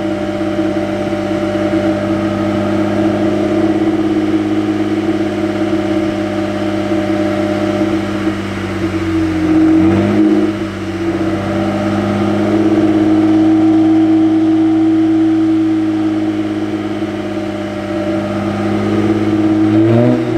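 BMW 335i's N54 twin-turbo inline-six running steadily at idle shortly after a cold start, heard from the exhaust end. The pitch dips and recovers briefly about halfway, and rises briefly near the end.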